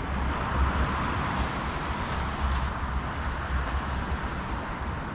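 Strong wind buffeting the microphone in a low, gusting rumble, over a steady hiss of surf.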